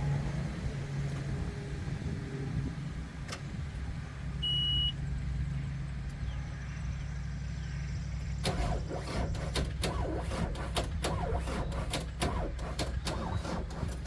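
Engine running steadily with a low hum. There is a short high beep about four and a half seconds in, and from about eight seconds on a run of sharp, irregular clicks and knocks.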